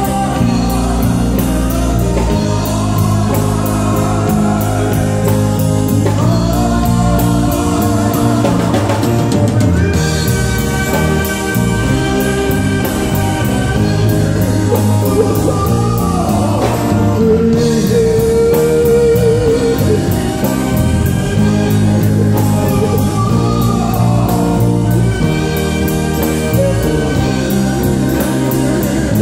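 Live rock band: a male lead singer sings over electric guitars and a drum kit.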